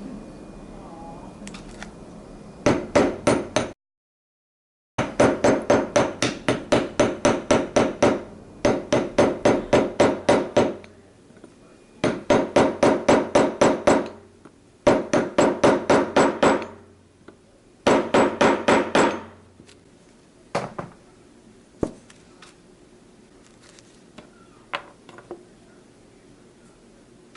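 Hand hammer rapidly tapping on metal parts of a motorcycle starter motor, in quick runs of about seven or eight strikes a second, each run lasting a second or two, with short pauses between runs. The audio cuts out briefly about four seconds in. After the runs come a few single knocks.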